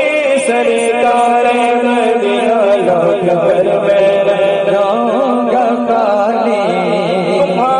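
Male voice singing a naat into a microphone: a long, wavering, ornamented melodic line without clear words, over a steady held drone.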